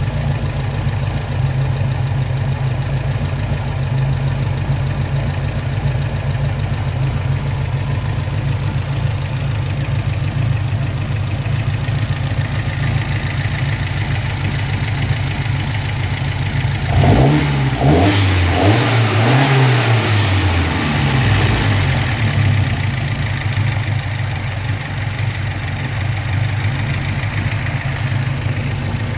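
1974 Alfa Romeo 2000's twin-cam four-cylinder engine on Weber carburettors idling roughly, blipped up and down a few times about two-thirds of the way through before settling back to the uneven idle.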